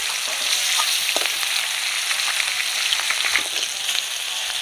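Turmeric-coated tuna steaks frying in hot oil in an aluminium kadai: a steady sizzle with scattered crackles and pops.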